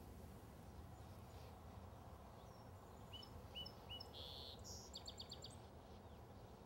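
Faint outdoor background noise with a small bird chirping: three short chirps about three seconds in, then a quick run of about five notes near the five-second mark.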